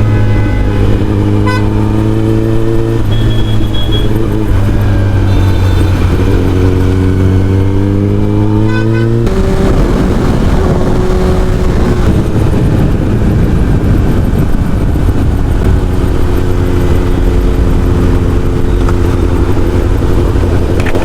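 Kawasaki ZX-10R inline-four with an Akrapovic full-system exhaust running while riding along, its pitch slowly rising and falling. About nine seconds in the sound changes abruptly to a rougher, noisier mix of engine and wind.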